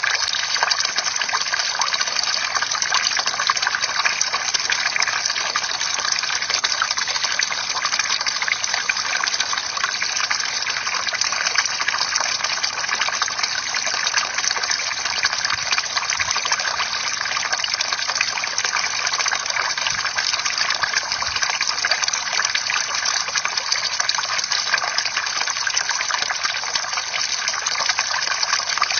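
Bamboo water fountain running: a steady, unbroken stream of pouring water.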